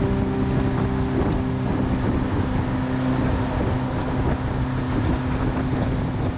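Fishing boat's engine running steadily under way, with wind buffeting the microphone.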